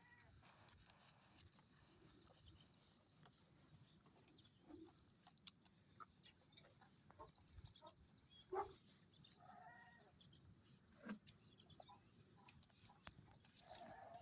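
Faint farmyard background: a few short, scattered animal calls and light clicks, the loudest about eight and a half seconds in.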